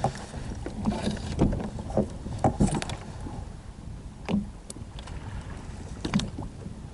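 Scattered knocks and clatters of gear being handled on a fishing kayak, over a low rumble of wind and water.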